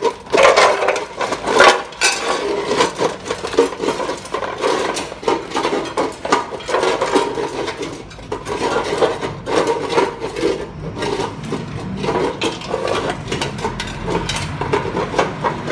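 Fila Brasileiro and Rottweiler eating dry kibble from aluminium bowls: fast, irregular crunching and lapping, with the metal bowls knocking and scraping on the concrete floor. It is loudest in the first couple of seconds.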